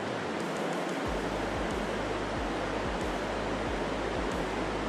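Steady rush of river water flowing over a stony streambed, with a low rumble joining about a second in.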